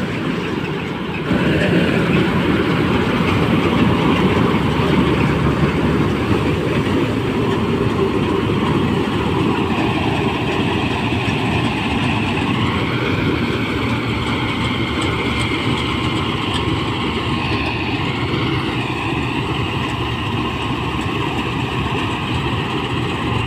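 Mahindra Balkar B-525 tractor-mounted combine harvester running under load while cutting paddy: steady engine and threshing-machinery noise with a high whine that drifts slowly in pitch. It gets louder about a second in.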